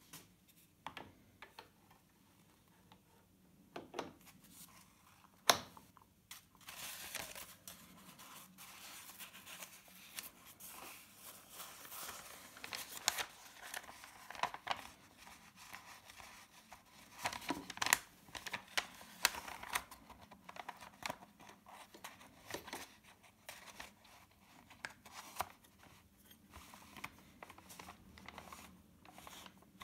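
Old paper piano roll being handled and loaded into a pianola: the brittle paper leader rustles and crinkles as it is unrolled, with scattered knocks and clicks from the roll and spool fittings, the sharpest about five seconds in. The rustling is densest through the middle and thins out toward the end.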